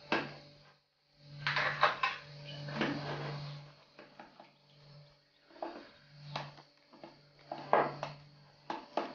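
Wire whisk beating a thick yogurt, flour and egg batter in a ceramic bowl: irregular wet scraping strokes with sharp clicks of the wires against the bowl.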